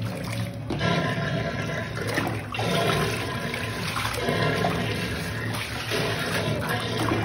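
Water running into a filled bathtub and sloshing around a dog being bathed: a steady rush of water.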